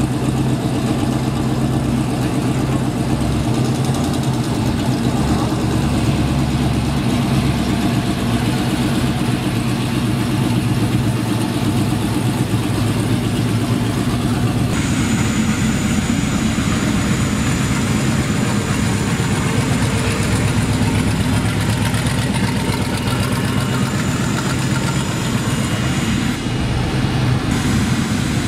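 Custom Chevrolet Chevelle's engine idling with a steady low rumble as the car rolls slowly. A broader rushing noise joins about halfway through.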